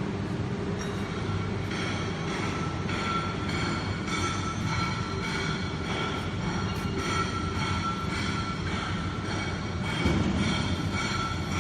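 Electro-hydraulic CNC press brake running: a steady hum with a high whine, and stacked tones that pulse at a roughly even rate from about two seconds in. A louder low surge comes near the end.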